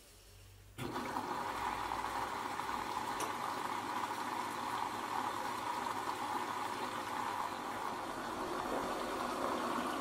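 Aldi front-load washing machine with water suddenly starting to rush through it about a second in, then running steadily: a loud flushing rush of water in the machine during the cotton intensive cycle.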